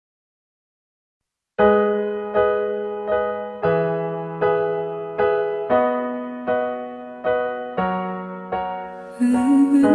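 Piano-like keyboard music. After a short silence, evenly repeated chords start, a little over one a second, over a bass line that changes every couple of seconds. Near the end more instruments join with a brighter shimmer.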